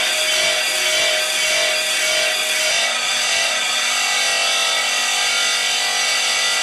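A steel sheep-shearing comb being ground against the spinning abrasive disc of a shearing-comb grinder: a loud, steady, unbroken grinding.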